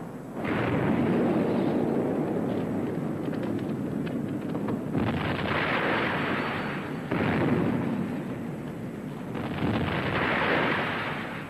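Battle sound effects after a shell hit on a warship's forward gun turret: a continuous rumble and hiss of explosion and fire that starts about half a second in, swelling into brighter hissing bursts around the middle and again near the end.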